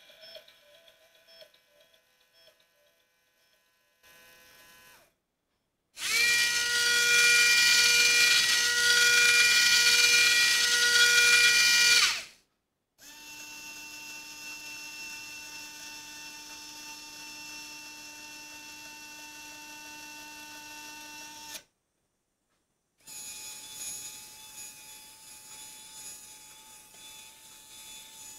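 Small electric motors in a motorized 3D-printed soup-can gadget whirring in separate runs of several seconds each, with abrupt silences between them. The loudest run, about six seconds in, is a harsh hissing whir with steady whining tones. The later runs retract the disco ball into the can.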